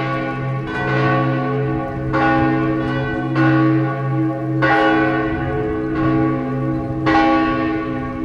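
Church bells of the basilica ringing the noon peal, two bells sounding together. There are about seven strokes, one every second or so, and each stroke's tones ring on into the next.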